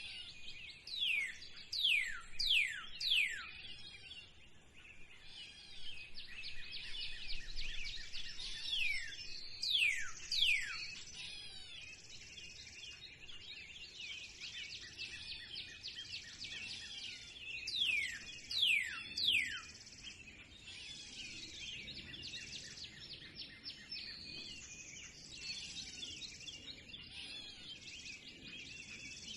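Spring birdsong chorus: many small birds chirping constantly, with a louder song of three or four steeply falling whistles that comes back about every eight to nine seconds.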